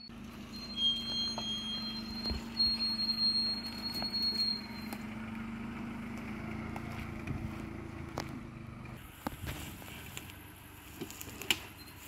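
Mitsubishi Pajero TR4's engine running steadily at low revs as the SUV crawls over deep erosion ruts on a dirt trail, with scattered sharp knocks.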